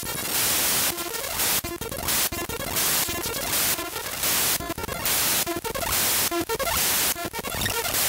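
The Windows system file shell32.dll.mun played back as raw audio data: harsh glitch noise, with loud bursts of hiss alternating roughly once a second with buzzing, stuttering tones.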